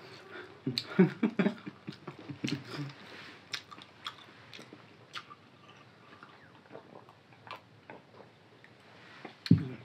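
Close-miked eating and drinking sounds: chewing, swallowing and sips of water, with sharp clicks and small clinks of steel tumblers and plates. They are busiest in the first three seconds and sparse after. A brief low vocal sound comes near the end.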